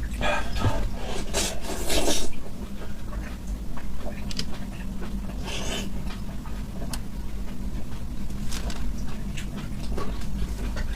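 Close-miked eating sounds: chewing and wet mouth noises while eating seafood. They come in short rasping bursts, the loudest about one to two seconds in and another midway, with scattered clicks.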